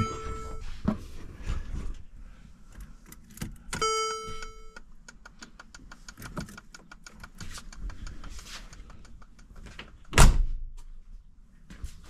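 Work sounds around a 2015 Mercedes G63: a one-second electronic chime at the start and again about four seconds in, a run of quick clicks, and one loud thunk about ten seconds in.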